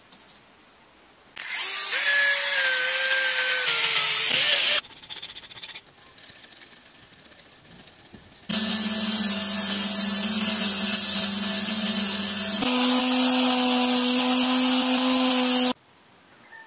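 Power tool running against a brass block being cut out for a sword's habaki, in separate stretches with abrupt cuts: first a noisy stretch with wavering pitch, then a steady motor hum from about halfway that steps slightly higher and stops suddenly near the end.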